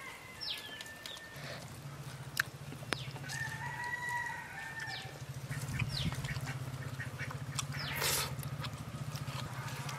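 Village chickens: a rooster crowing once in the distance about midway, among clucks and short falling chirps of small birds, over a steady low hum that starts about a second in.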